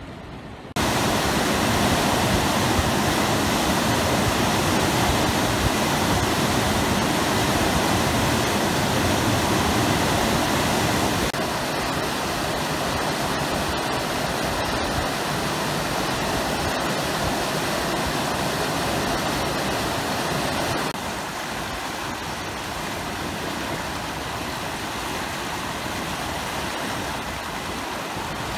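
Steady rush of fast-flowing floodwater in a swollen river. It starts abruptly just under a second in and drops in level in two steps, about a third and about two-thirds of the way through.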